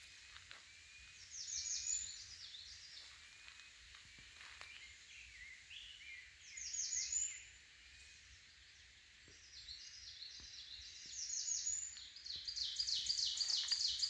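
Woodland songbirds singing. A high, fast run of repeated notes comes about a second in, again past the middle, and longest and loudest near the end. Softer, lower warbled phrases come in between.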